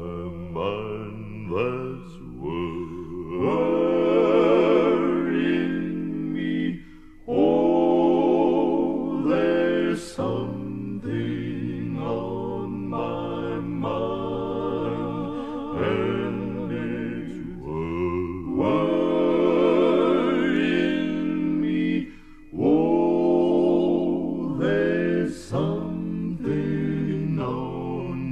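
Male gospel vocal quartet singing in close harmony, holding long notes with vibrato, with two short breaks between phrases.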